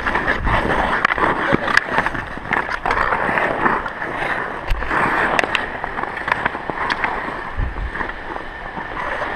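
Ice skate blades scraping and gliding over rough outdoor ice during a hockey-with-a-ball game, with many sharp clacks of hockey sticks scattered through.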